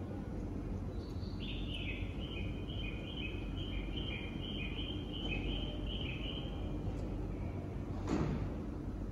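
Bird-like chirping: a quick two-note call, high then low, repeated over and over for about five seconds, over the steady hum of an E531 series electric train standing at the platform. A brief whoosh about eight seconds in.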